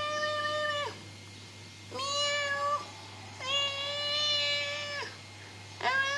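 Long, drawn-out meows, four in a row. Each holds a steady pitch and drops away at the end.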